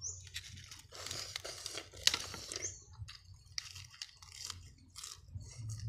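Crisp fresh lettuce leaves torn and crinkled by hand, with a sharp snap about two seconds in, followed by crunchy chewing of a mouthful wrapped in lettuce.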